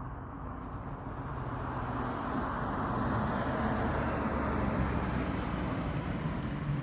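A passing motor vehicle: engine and tyre noise grows louder, peaks about four to five seconds in, and starts to fade.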